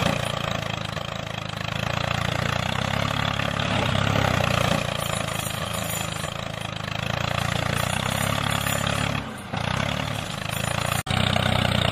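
A steady engine-like motor drone, dipping briefly about nine and a half seconds in and cutting out for an instant near the end.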